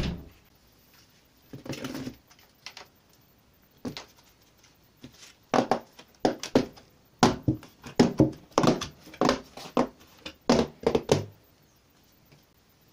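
A chest freezer lid thuds shut at the start. Then a plastic bucket lid is pried off by hand, its rim giving way in a string of sharp cracks and snaps over about six seconds.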